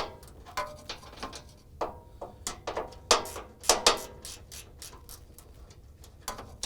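A ratcheting 9/16 wrench clicking in short, irregular runs as the fuel tank's mounting bolts are tightened down, going quiet about four seconds in apart from one last click near the end.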